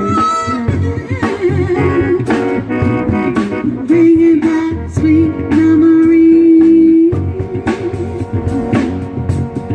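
A blues-soul band playing, with a steady drum beat, bass and a lead line of bending notes that holds one long note from about four to seven seconds in.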